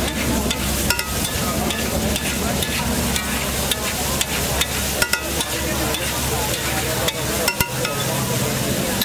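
Boiled-egg and green masala mixture sizzling in oil on a hot flat griddle, with a wide metal spatula scraping across it and a few sharp clicks of the blade against the griddle.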